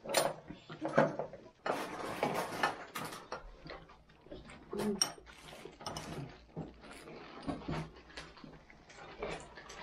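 Mealtime table noises: scattered clicks and clinks at the table, with a longer stretch of rustling about two seconds in.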